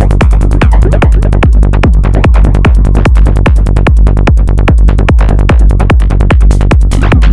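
Dark psytrance from a VCV Rack virtual modular synthesizer patch: a deep pulsing bass under a fast, steady rhythm of sharp hits, about four to five a second, with a dark, mechanical sequenced character.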